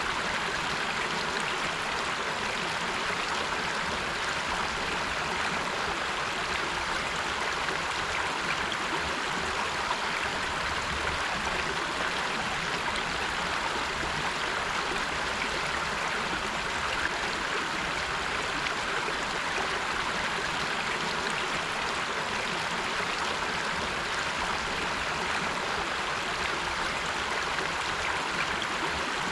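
A river's flowing water rushing steadily, with no change in level.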